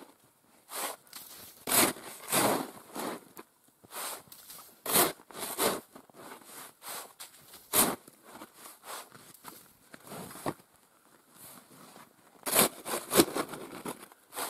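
Snow shovel digging into deep snow: irregular scraping, crunching strokes about a second apart, with a quicker run of them near the end.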